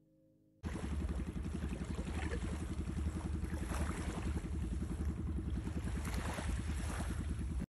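Small motorboat engine running steadily over water, with a fast even pulsing. It starts abruptly about half a second in and cuts off suddenly at the end.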